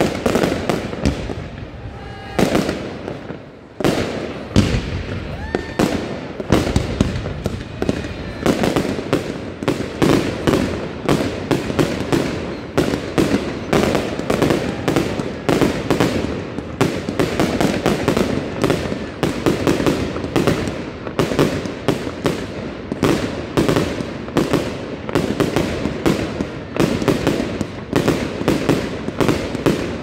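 Fireworks display: a few separate bangs at first, then a dense, continuous barrage of bangs and crackling.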